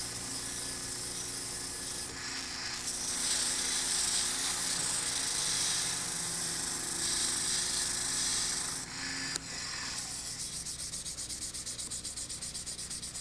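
220-grit sandpaper on a wooden block rubbing against a wooden pen blank spinning on a mini lathe: a steady sanding hiss that grows louder in the middle. After a click about nine seconds in, it changes to a quick rhythmic rubbing at about four strokes a second.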